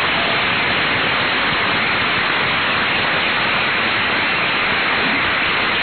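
Studio audience applauding, a steady, even clatter of clapping heard through a band-limited old radio transcription.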